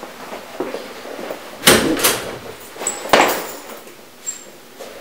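A metal-handled restroom door being opened: a pair of loud clunks about one and a half to two seconds in, another clunk around three seconds, and a small knock near the end.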